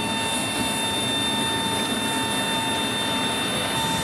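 Steady drone of aircraft machinery with a constant high whine of several tones, heard inside a C-17 Globemaster's cargo hold.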